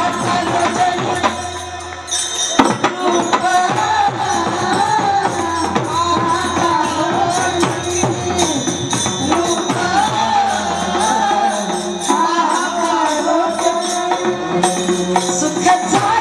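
A woman singing a Marathi folk-devotional song, her voice melodic and held over a fast, even beat of jingling hand percussion.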